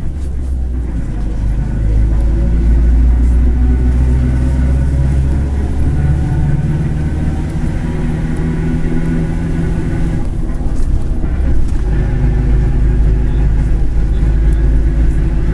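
Mercedes-Benz OF-1721 city bus diesel engine running under way, its note rising and falling a few times with the load. Under it runs the growl of a bearing, which the recordist calls 'rolamento roncando' (bearing growling).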